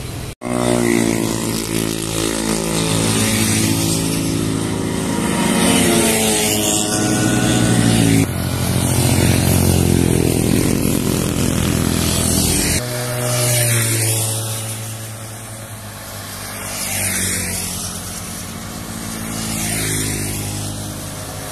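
Motorcycles riding past one after another, their engine notes rising and falling as each goes by.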